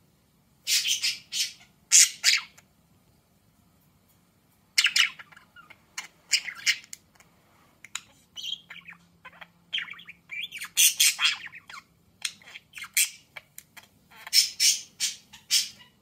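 Budgerigar chirping and chattering in quick, harsh bursts at its reflection in a mirror. The calls come in clusters, with a pause of a couple of seconds early on, then nearly continuous chatter later.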